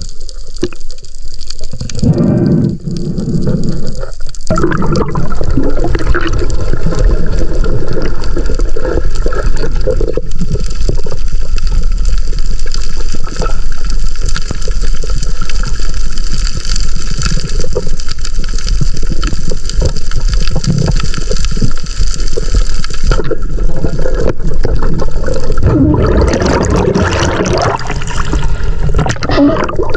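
Water rushing and gurgling around an underwater camera carried by a swimming spearfisher, with uneven surges for the first few seconds and a stronger churn of bubbles near the end.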